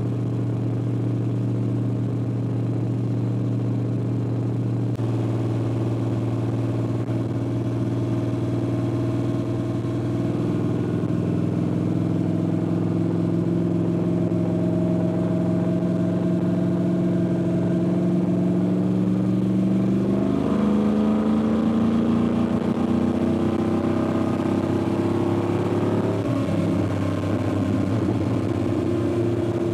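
Cammed 5.3-litre LS V8 in a Ford Ranger, heard from inside the cab while cruising through its side-exit exhaust. The engine note climbs slowly and steps down in pitch about twenty seconds in and again about twenty-six seconds in.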